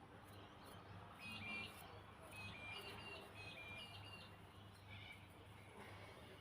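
Faint low hum of a Click ceiling fan's motor running on medium speed, swelling and fading about once a second. A small bird chirps a quick series of short high calls from about a second in to about four seconds, and once more near the end.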